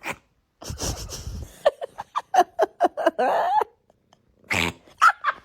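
A person laughing: a breathy start, then a quick run of short 'ha' bursts, about six a second, building into a longer laugh that stops suddenly. A few short, sharp sounds follow near the end.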